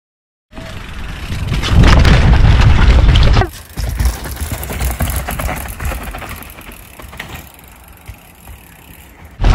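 Mountain bike riding heard on an action camera's microphone: loud wind rumble and tyre noise in the first few seconds. After a sudden cut about three and a half seconds in, quieter trail noise with a few scattered knocks as a rider passes on the dirt trail.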